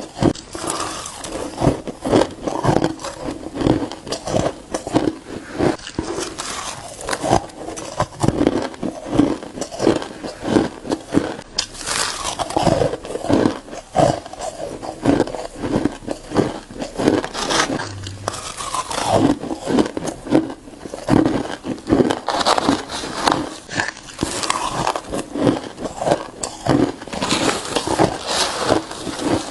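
Crushed ice being bitten and chewed close to the microphone: a continuous run of rapid, irregular, crisp crunches.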